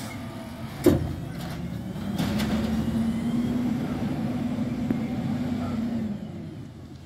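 2018 Autocar ACX automated side-loader garbage truck: the emptied cart knocks down onto the curb about a second in, then the truck's engine runs loudly with a steady drone as it drives off, dropping away about six seconds in.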